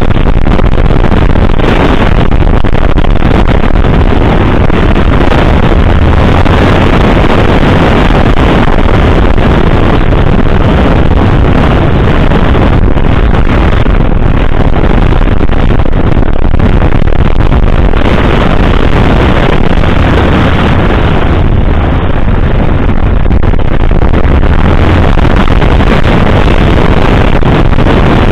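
Yamaha XT660Z Ténéré's single-cylinder engine running at speed on a gravel trail, buried in heavy wind buffeting on the microphone; loud and steady.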